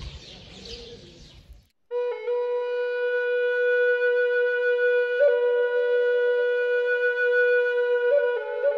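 Background music: a flute-like wind instrument holding long, steady notes, coming in about two seconds in and moving to a new note twice.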